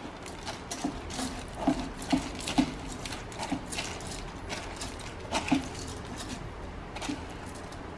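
Soaked rice being tipped and scooped by hand into a steel mixer-grinder jar: soft, irregular clicks and light taps of wet grains and fingers against the metal.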